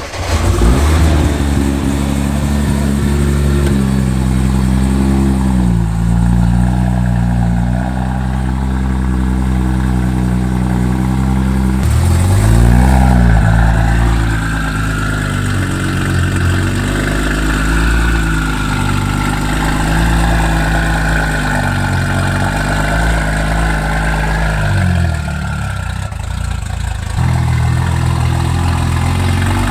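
Nissan GT-R's engine idling just after start-up, its pitch wandering a little, with one short rev about twelve seconds in and a rise again near the end.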